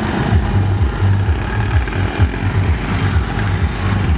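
Bajaj auto-rickshaw engine running with a low, uneven chugging.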